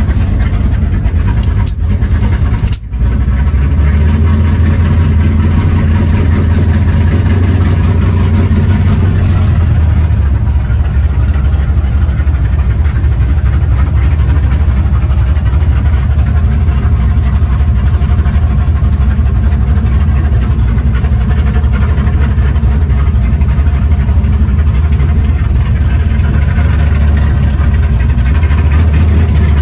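Car engine running steadily while driving, a loud low drone, with a brief dip in level about three seconds in.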